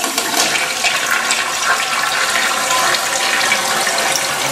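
Toilet flushing: a steady rush of water through the bowl, the flush already under way.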